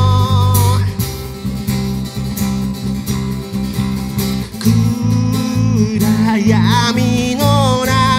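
Live acoustic band music: two strummed acoustic guitars over electric bass and a cajon beat, with a sung note ending about a second in and the voice coming back near the end.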